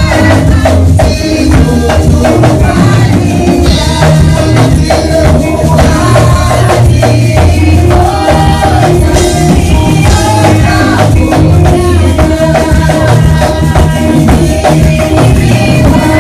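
Church hymn sung by a group into microphones over loud amplified accompaniment: heavy bass, drums and a shaken percussion keeping a steady beat.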